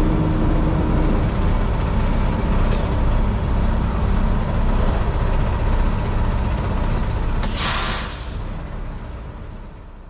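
Semi-truck's diesel engine running with a steady low rumble, and a loud hiss of air from the air brakes about seven and a half seconds in, lasting about a second. The sound then fades away near the end.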